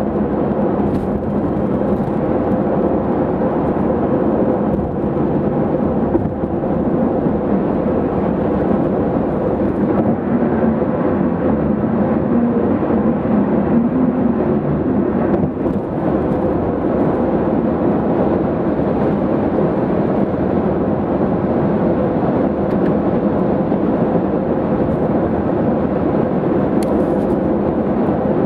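2005 Honda Civic Hybrid driving at highway speed: a steady low rumble of tyre, road and engine noise with a faint steady hum.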